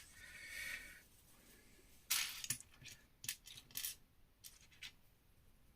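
Small plastic Lego pieces being handled and clicked together: a brief soft rustle at the start, then a scatter of sharp light clicks and clatters between about two and five seconds in.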